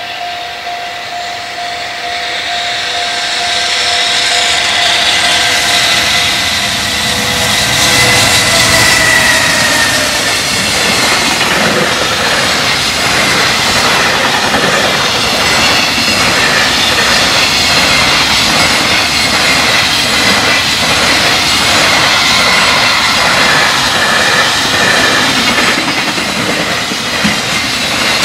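Freight train passing a level crossing at speed: the locomotive's tone drops in pitch as it goes by about eight to ten seconds in, then a long string of container wagons rattles past with a steady clickety-clack of wheels over the rail joints. The crossing's warning bell rings over it.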